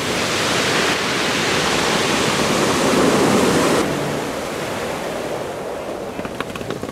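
Ocean surf breaking and washing up a pebble beach, a steady rush of water. It drops to a quieter wash about four seconds in, and a few light clicks come near the end.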